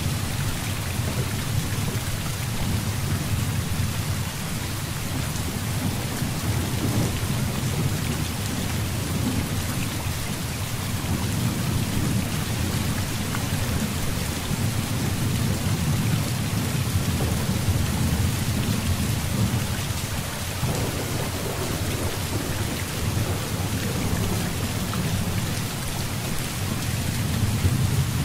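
Heavy rain pouring steadily, with low rolling thunder rumbling underneath that swells and eases over several seconds, without any sharp crack.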